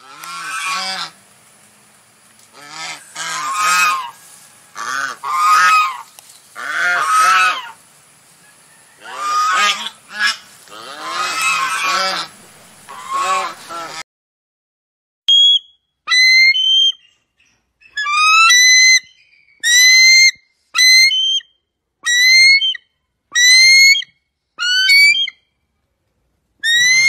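A swan's loud honking calls, repeated in uneven groups for about fourteen seconds. After a short gap comes a bird of prey's high, short rising whistled calls, repeated every second or so.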